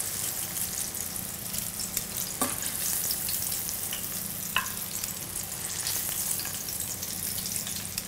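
Batter-coated shrimp frying in a skillet of hot oil: a steady sizzle with scattered small crackles, and a couple of sharp clicks.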